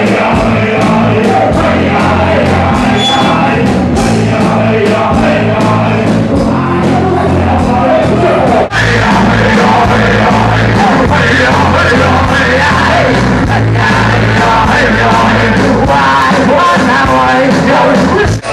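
Live reggae-hip hop band playing at full volume, with bass, drums and guitar, and MCs' vocals on microphones over it. About nine seconds in it cuts abruptly to another live performance of the same kind of music.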